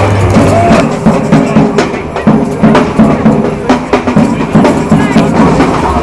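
Drums and percussion playing a fast, steady beat, with sharp knocking strikes.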